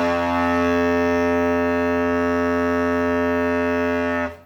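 Homemade PVC-pipe and balloon air horn blown in one long, loud, steady low blare rich in overtones, held for about four seconds before cutting off.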